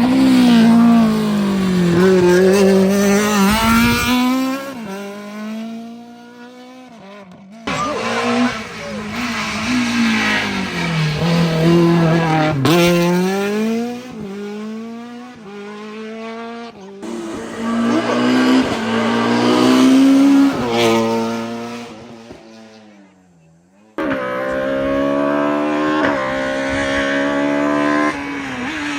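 Rally cars at full throttle on a tarmac stage, their engines revving high, with the pitch climbing and dropping through gear changes and throttle lifts. The sound comes in several short passes, each cut off suddenly at an edit, about 7 to 10 seconds apart.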